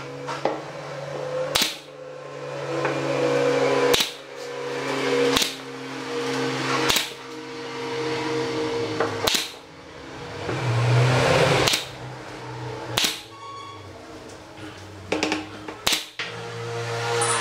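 Pneumatic brad nailer driving nails into wooden frames: a sharp shot every second or two, about ten in all, with a quick double shot near the end. Background music with steady tones plays underneath.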